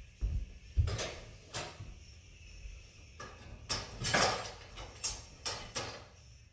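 A series of short knocks and clicks at uneven intervals, bunched most closely a little past the middle.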